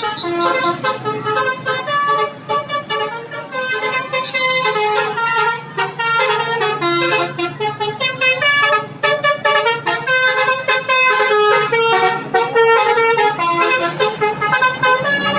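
Bus telolet 'basuri' musical horn playing a fast tune of short stepped notes, with only brief breaks.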